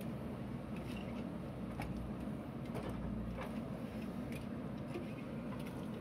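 JCB 3DX backhoe loader's diesel engine running steadily under hydraulic load while the backhoe works soil, with scattered light knocks and clatters about once a second.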